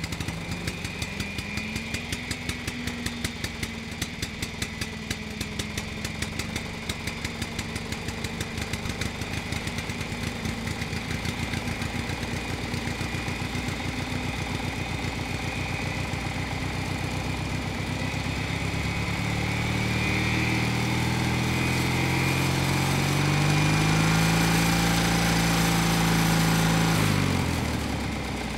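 Onboard sound of a BMW S1000RR's inline-four engine on part throttle through a run of corners, with wind rushing past. In the last third the engine note rises as it pulls harder, holds, then drops away near the end as the throttle closes.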